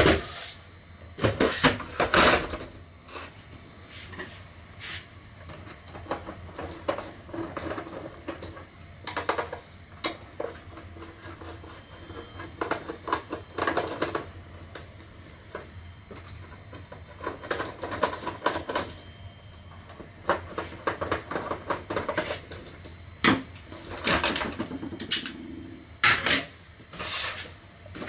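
Irregular plastic clicks, knocks and scrapes as an iRobot Roomba robot vacuum is taken apart with a cross-head screwdriver: screws turned out and plastic housing parts lifted off and set down on a table. The loudest knocks come right at the start and in the last few seconds.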